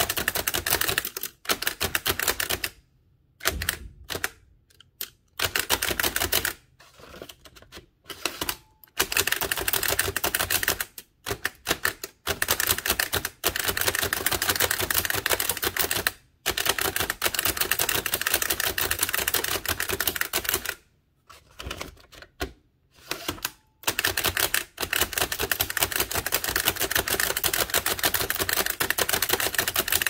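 Bennett type-cylinder typewriter being speed-typed: a fast, continuous clatter of keystrokes at about five to six characters a second. The typing breaks off briefly a few times, a few seconds in and again past the middle.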